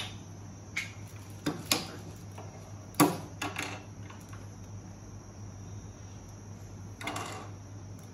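Small plastic building blocks clicking and knocking as they are pressed together and set down on a hard tabletop: a handful of scattered clicks, the loudest about three seconds in and a short cluster near the end, over a steady low hum.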